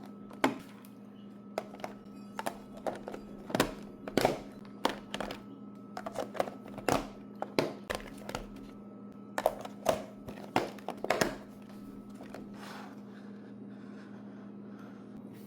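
Irregular clicks and knocks of hard plastic items being handled and set into a plastic compartment snack box; they stop about twelve seconds in, leaving a steady low hum.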